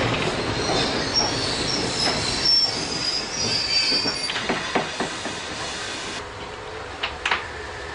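Tobu 5700 series electric train rolling slowly over points, its wheels squealing high for the first few seconds, then a run of sharp clicks as the wheels cross the rail joints and crossing. The running noise grows quieter as the train slows.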